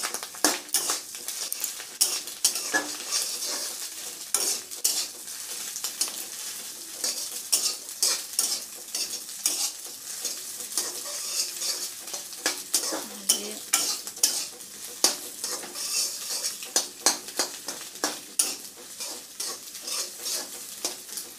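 Maggi noodles sizzling in a metal kadai while a metal spatula stirs them, clinking and scraping against the pan a few times a second over a steady frying hiss.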